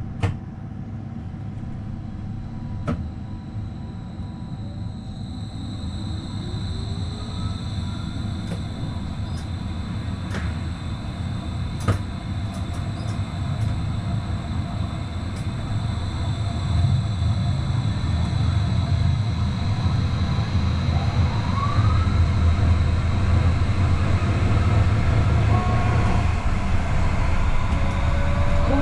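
Stadtbahn light-rail car pulling away and accelerating through a tunnel, heard from the driver's cab. A wheel-on-rail rumble grows steadily louder, a high steady whine sets in after a few seconds, and there are a few sharp clicks.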